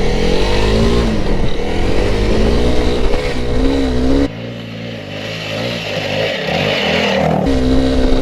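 Honda CRF300L Rally's single-cylinder four-stroke engine working hard up a steep dirt climb, its pitch rising and falling with the throttle. About four seconds in it drops suddenly quieter and thinner for about three seconds, then comes back full.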